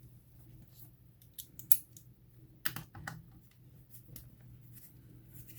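Scattered small clicks and taps from a screwdriver working on the plastic housing of a portable tire inflator as hidden screws are taken out. One sharp click comes just under two seconds in, and a quick cluster of clicks about a second later.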